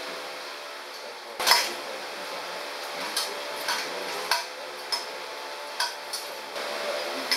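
Metal tools and engine parts clinking under the hood of a Ford Bronco as the engine is worked on by hand: one louder clank about a second and a half in, then half a dozen lighter, irregular clinks.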